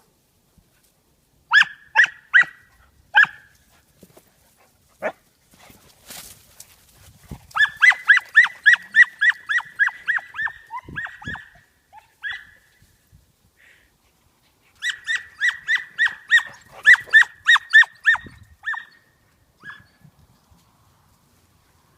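A puppy barking in high-pitched, rapid yaps during play. Four yaps come first, then two fast runs of about a dozen each, with a pause between them.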